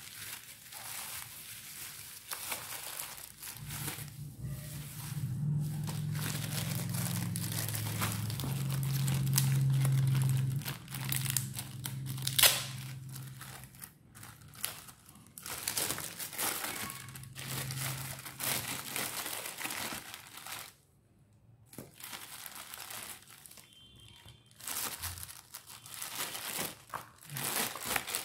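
Plastic bubble wrap and a clear zip-lock bag crinkling and crackling as they are handled and opened, with many sharp rustles. A low steady hum sounds underneath from about four seconds in until about fourteen seconds in.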